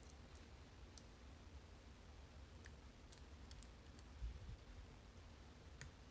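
Faint, scattered clicks of a lock pick working the pins inside a padlock's core, with a soft low bump about four seconds in.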